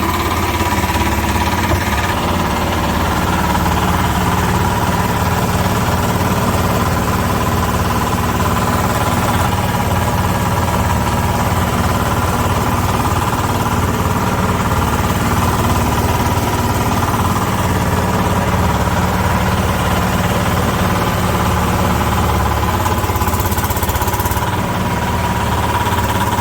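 Hydraulic press baler's power unit running steadily: a constant low hum with a thin, steady whine over it.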